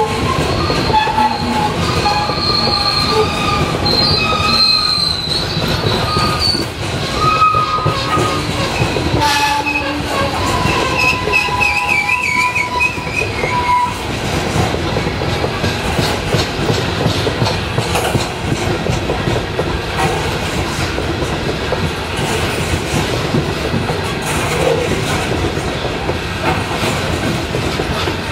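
Freight train of open-top hopper cars rolling past at close range: a steady rumble and clatter of steel wheels on the rail. Over roughly the first half, high-pitched wheel squeals waver in and out, then stop, leaving only the rumble and clatter.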